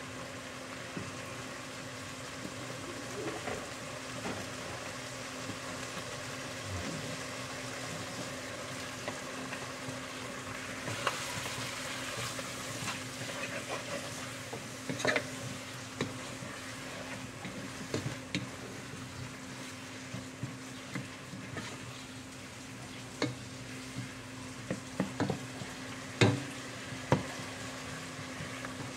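Wooden spoon stirring a thick stew in a nonstick pot, knocking and scraping against the pot over a steady sizzle from the cooking food. Sharp knocks are scattered through, the loudest about 26 seconds in, and a steady low hum runs underneath.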